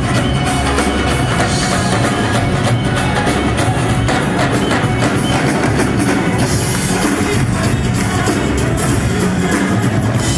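Loud live band music led by several dhol drums beating a fast, driving rhythm over a drum kit.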